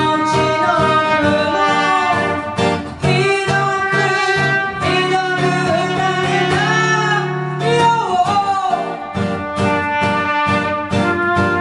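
Live band music: guitar chords keeping a steady rhythm under a lead melody that slides between notes.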